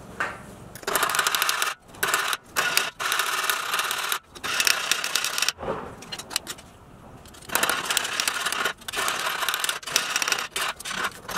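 Hammer tapping rapidly on a thin pressed-steel Tonka toy truck part held against a bench vise: runs of quick metallic clinks lasting about a second each, with short pauses between them.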